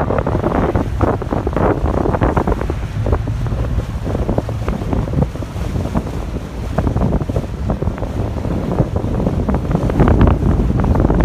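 Wind buffeting the microphone hard and unevenly aboard a boat on open water, with the wash of water and the boat underneath.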